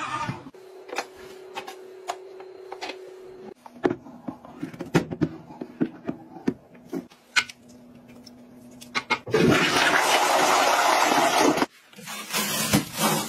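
A toilet flushing: a loud rush of water for about two seconds that cuts off suddenly. Before it come a steady motor hum and scattered clicks, and after it clicks and rustling.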